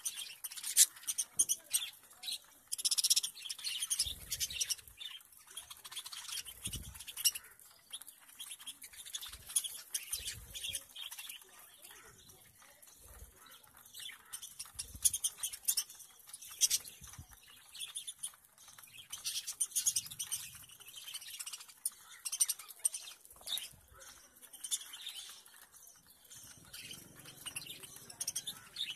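A flock of budgerigars chattering with many short, high chirps and squawks while feeding, mixed with scattered clicks and a few soft low thumps from birds pecking and shuffling at a metal seed tray.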